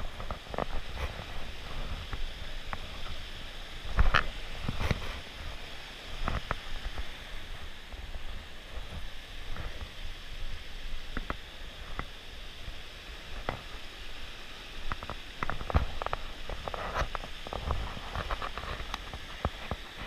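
Steady hiss of a rushing mountain stream and small waterfall, with irregular footsteps and knocks on rocky ground over it, the loudest about four seconds in, and low rumbling on the microphone.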